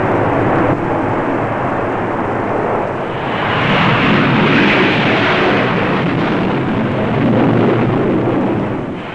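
F-4 Phantom jet engines, a loud steady rushing noise that swells about four seconds in and eases off near the end.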